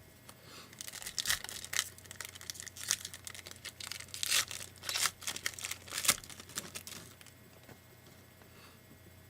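A 2012 Panini Prizm Football card pack wrapper being torn open and crinkled: a run of sharp crackling rips lasting about six seconds, then it stops.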